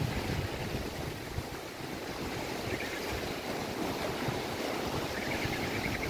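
Wind-driven waves on a lake washing and breaking, with strong gusting wind buffeting the microphone in low, uneven rumbles.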